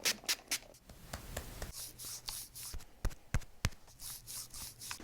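Hands rubbing and brushing over a patient's back and clothing on the treatment table, with a run of soft swishes about two seconds in and a few sharp clicks a little after three seconds.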